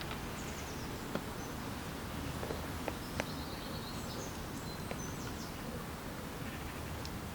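Lakeside ambience: faint, high, chirping bird calls over a steady low background rumble, with a few small clicks.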